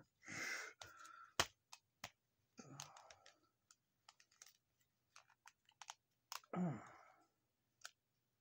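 Hard plastic action-figure parts clicking and tapping as a piece is pushed to snap onto the Buzz Lightyear figure and won't seat properly. Scattered sharp clicks are heard, with a short falling voice sound about two-thirds of the way through.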